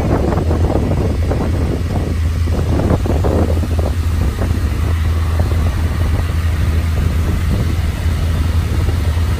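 Motorboat engine running steadily at speed, with water rushing past the hull and wind buffeting the microphone for the first few seconds.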